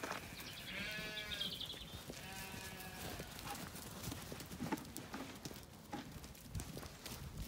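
Zwartbles rams bleating twice, each call about a second long and wavering, followed by scattered light knocks.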